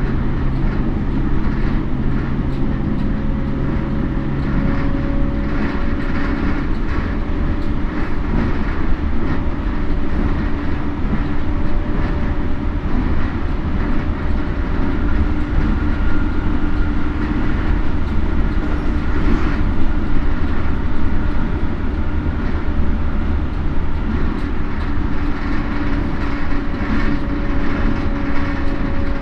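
Toei 10-300 series electric train running at speed, with Mitsubishi IGBT inverter traction drive: steady wheel-on-rail rumble with clicks over rail joints and faint motor whine tones that shift a little in pitch. A low hum drops out about five seconds in.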